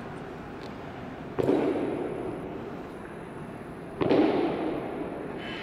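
Two heavy boot stamps on a stone floor, about two and a half seconds apart, each ringing out in a long echo: honor guards' slow high-step march through a marble hall.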